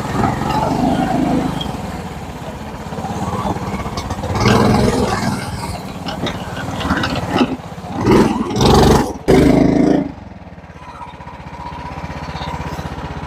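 Lifted Yamaha G16 golf cart's gas engine revving in repeated surges as the cart pushes through mud, loudest just before it drops back about ten seconds in to a lower, steady run as the cart sits bogged in a rut.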